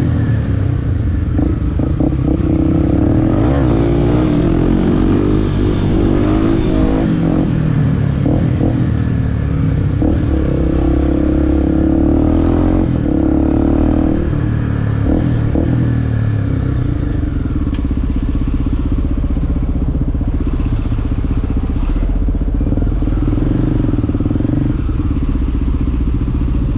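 Motorcycle engine heard from the bike while riding, its pitch rising and falling as it revs and shifts through the first half, then holding a steadier pitch.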